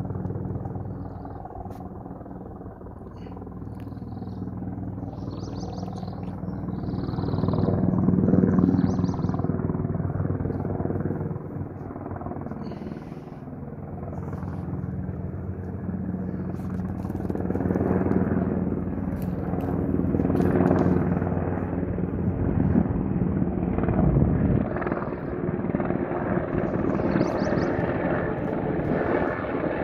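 Sikorsky UH-60M Black Hawk military helicopter flying overhead: steady rotor and turbine noise that swells twice and grows louder overall as it comes closer.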